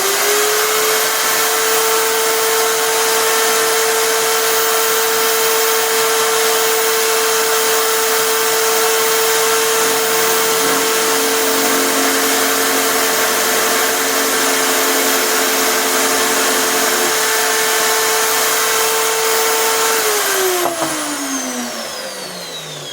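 Electric drill serving as the motor of a homemade router table, spinning a router bit at full throttle with a steady high whine while the bit makes a test cut on a workpiece. About 20 seconds in it is switched off, and the whine falls in pitch as the drill winds down.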